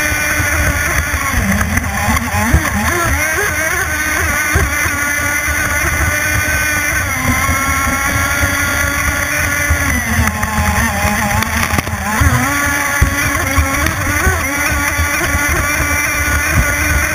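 CMB 91 two-stroke nitro-methanol engine of an RC offshore race boat running hard. Its pitch wavers and drops briefly about seven seconds in and again around ten to twelve seconds in, with water noise and a few hull knocks on the chop underneath.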